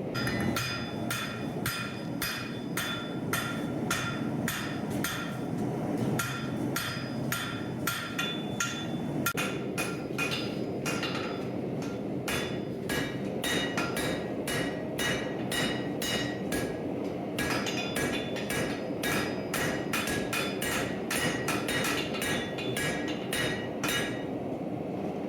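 Hand hammer striking hot steel on an anvil, about three blows a second with a ringing tone on each, in forging a draw knife from bar stock. The rhythm pauses briefly a couple of times.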